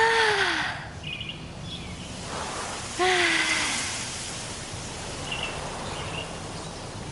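A woman's voice calling out twice, a loud, breathy open 'aah', once at the start and again about three seconds later. Faint bird chirps come in between.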